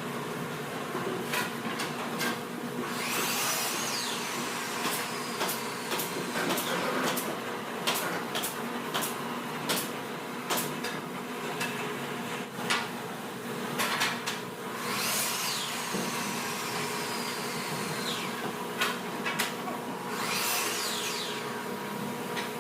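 Woodworking assembly noise: many sharp knocks and taps over a steady machine hum, with three louder bursts from a power tool. After the first two bursts a whine falls in pitch over a few seconds, as the tool spins down.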